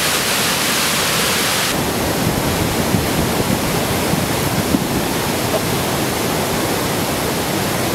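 Waterfall rushing: a steady wash of falling water with no let-up, its high hiss dropping a little about two seconds in.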